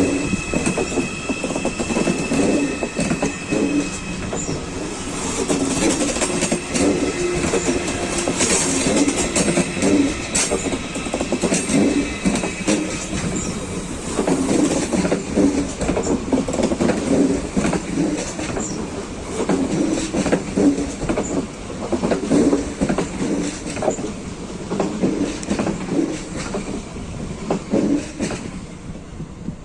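Passenger train rolling along station tracks, its wheels clattering over points and rail joints in an uneven rhythm. A steady high whine runs through the first half and stops about halfway.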